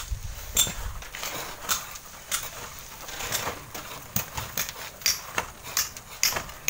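Scattered, irregular sharp clicks and knocks from bamboo poles scraping and prying at stone and packed sand on a cliff face, with small stones knocking as they come loose.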